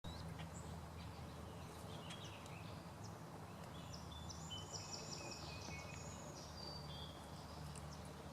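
Faint birdsong from small birds: scattered high chirps and whistles, with a quick trill about halfway through, over a steady low background hum.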